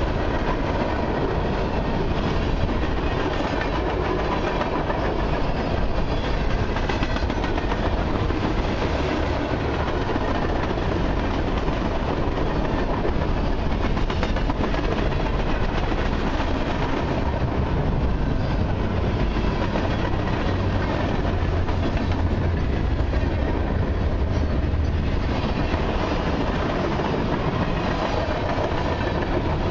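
Freight train's boxcars and tank cars rolling past: a steady low rumble of steel wheels on rail, with the wheels clicking over rail joints.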